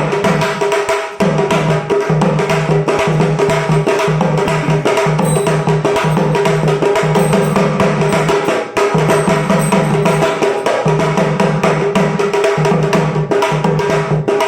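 Sambal, the Maharashtrian pair of stick-played drums, played in a fast, continuous stream of strokes, with a low drum tone coming and going in spells of about a second.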